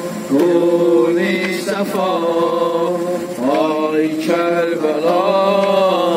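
A man's voice chanting a Shia mourning lament for Karbala into a handheld microphone. He sings in long held notes that waver and glide between pitches, in several drawn-out phrases with short breaths between them.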